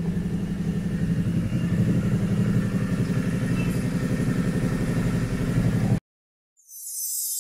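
Royal Enfield motorcycle engine idling steadily with its exhaust valve system opened. It cuts off abruptly about six seconds in, and a bright shimmering jingle starts near the end.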